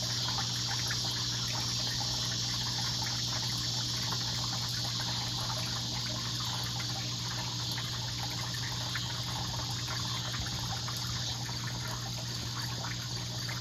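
Steady outdoor background: a constant low mechanical hum with a few steady overtones under an even high-pitched hiss, with no distinct events.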